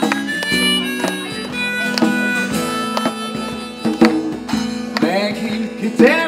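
Live acoustic music: a harmonica melody over acoustic guitars and a djembe played by hand, with notes swooping upward twice near the end.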